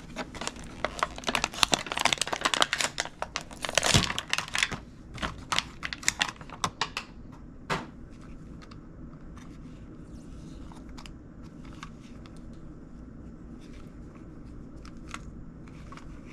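Crinkling and tearing of plastic packaging as a small wind-up toy boat is unwrapped, dense crackling for about the first seven seconds, then only occasional light clicks and handling noises.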